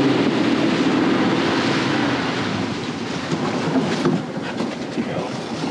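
Outboard motor of a panga running at speed, its engine tone fading away at the start as it is throttled back. Rushing water and wind noise follow and slowly die down as the boat slows. A few light knocks come about four seconds in.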